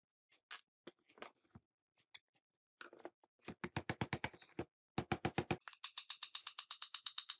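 Rapid metallic clicking as a screwdriver is worked into the metal housing of an old electric chainsaw. A few scattered taps come first, then runs of quick even clicks, about eight to ten a second, with the longest run starting about two-thirds of the way through.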